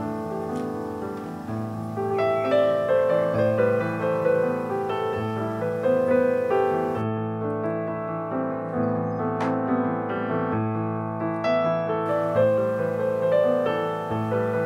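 Background music: a calm instrumental track led by piano, with notes changing steadily throughout.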